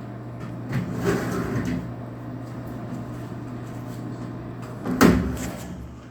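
Steady low hum with a few knocks and rattles, the loudest a single sharp knock about five seconds in.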